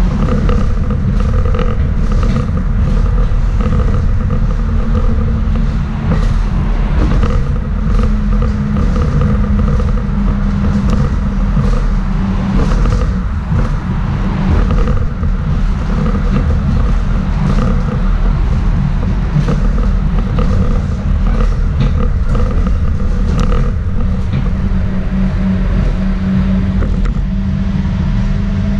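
Interior of a Schindler Waggon Be 4/6 tram on the move: a steady rumble of wheels on rails under a constant hum from the running gear, with frequent short clicks and rattles. A new, higher steady tone comes in near the end.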